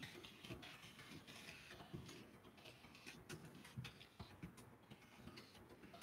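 Faint, irregular clicking of a laptop keyboard as someone types a short message.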